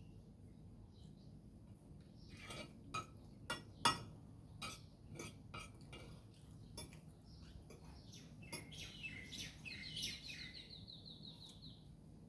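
Cutlery clinking and tapping against plates and bowls during a meal, with a sharp clink about four seconds in. A bird twitters, then gives a rapid trill of repeated chirps in the last few seconds.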